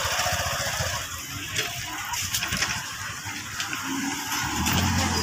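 Street noise in a crowded market lane, with a motor vehicle's engine running close by and growing louder from about four and a half seconds in.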